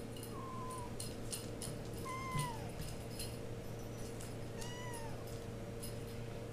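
RagaMuffin cat meowing three times in short, arched mews about two seconds apart, with light clicks and taps scattered between.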